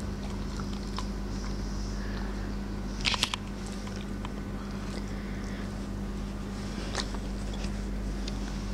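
Siberian husky licking and mouthing a small pear, giving a few short wet clicks, loudest in a quick cluster about three seconds in and again near seven seconds, over a steady low hum.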